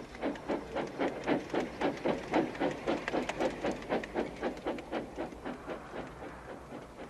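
Steam locomotive chuffing sound effect: a regular puffing at about four beats a second. It grows louder, peaks in the middle, then fades away as if the engine passes by.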